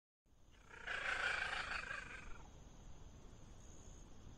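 A small cat gives one drawn-out call lasting about a second and a half, starting about a second in, over a low steady background hiss.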